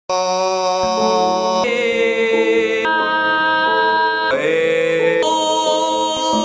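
Intro music of sustained, held chords that change every second or so, with no beat.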